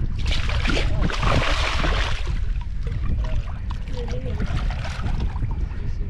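A hooked carp thrashing and splashing at the water's surface for the first couple of seconds, over a steady low rumble of wind on the microphone.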